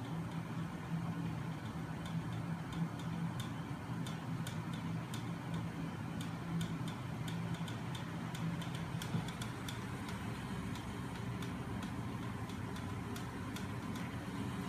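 Homemade magnet-crank machine running, driven by a small DC electric starter motor off a bench power supply: a steady motor hum with light, irregular clicking from the spinning parts. The hum's tone changes about nine seconds in.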